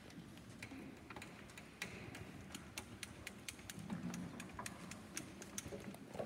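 Scattered light clicks and knocks, irregular and several a second, from acoustic guitars and gear being picked up, handled and set down.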